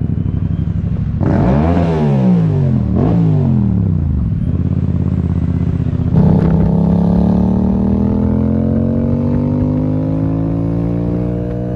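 Yamaha MT-07 parallel-twin engine idling, then blipped twice, each rev rising and falling back. About six seconds in it goes up to higher revs and keeps climbing slowly and steadily.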